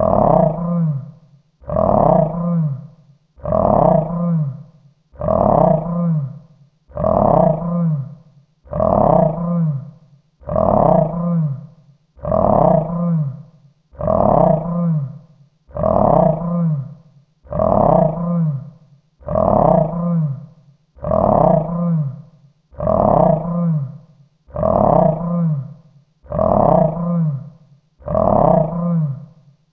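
Monster growl sound effect: the same short growl repeats about every second and three-quarters, each one starting loud and fading out before the next.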